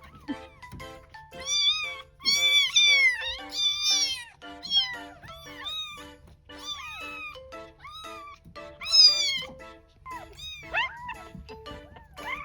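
Newborn kittens, about ten days old, crying: a rapid string of high, arched meows that sometimes overlap, loudest a couple of seconds in and again near the end. Light background music with short repeated notes plays underneath.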